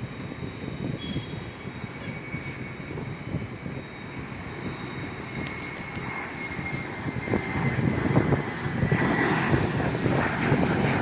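Jet aircraft engines rumbling, growing louder over the last few seconds, with a thin whine that slowly falls in pitch.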